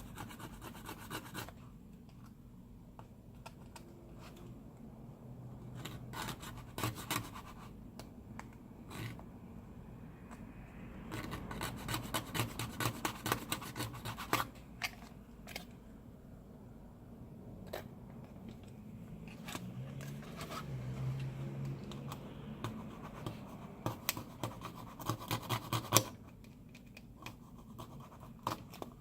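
A small hand tool scraping and scratching hardened glue residue off a smartphone's frame, in several bursts of quick strokes; the busiest bursts come in the middle and near the end.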